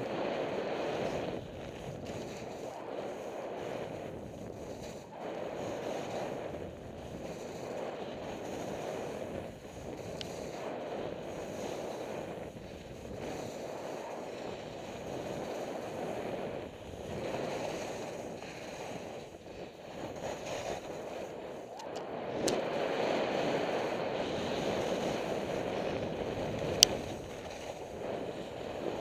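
Skis carving on packed snow in a run of turns, the hiss of the snow swelling and fading every second or two, with wind on the microphone. Two sharp clicks come in the second half.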